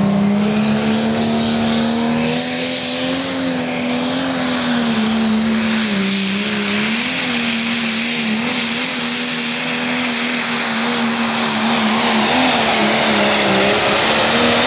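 Pro Stock pulling tractor's turbocharged diesel engine running flat out under heavy load as it drags the weight-transfer sled, its pitch holding high and steady with small dips and surges.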